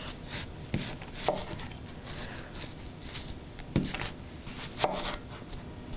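Sharp chef's knife slicing a whole onion crosswise into rings on a wooden cutting board: a run of separate strokes, each ending in a tap of the blade on the board.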